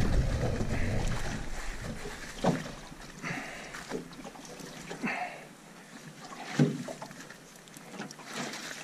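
Drift gillnet being hauled by hand into an aluminum skiff: the net, floats and lead line rustle and knock against the hull, with several sharp knocks, the loudest about two-thirds of the way in. Wind rumbles on the microphone over the first two seconds.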